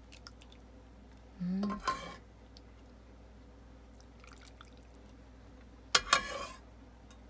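A metal ladle clinking and scraping against the soup pot while spicy soup is poured and drips into plastic containers, in two short bursts, about a second and a half in and about six seconds in.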